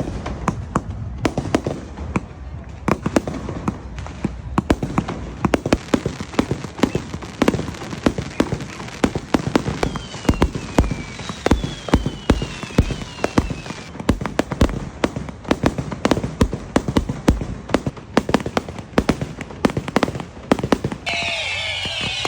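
Fireworks display: a rapid, continuous barrage of aerial shell bangs and crackles, with a few falling whistling tones about halfway through.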